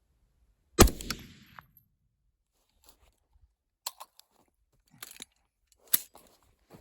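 A single rifle shot from a 6mm ARC rifle about a second in: a sharp crack with a short ringing tail. A few faint clicks and knocks follow.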